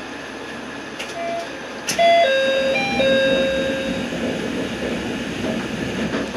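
An electronic chime sounds aboard a diesel railcar. A single note comes about a second in, then a short tune of four notes, the last one held for about a second. Two sharp clicks come just before the tune, and the railcar's steady rumble runs underneath.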